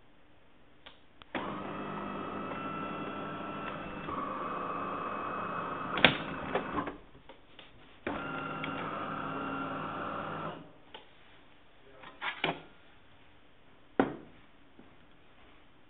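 De'Longhi Magnifica bean-to-cup coffee machine's pump running as it dispenses coffee, in two spells of about five and two and a half seconds with a pause between and a change in pitch partway through the first. Clicks follow the pump, and near the end there is one sharp knock as the cup is set down.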